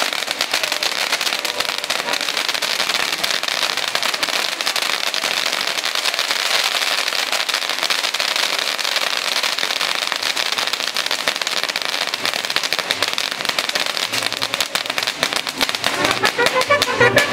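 Castillo fireworks fountains hissing and crackling steadily, with a dense run of rapid pops. A brass band starts up near the end.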